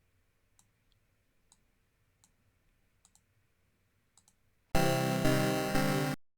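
Several faint mouse clicks, then a loud synthesized tone with many steady overtones starts near the end, plays for about a second and a half, and cuts off abruptly.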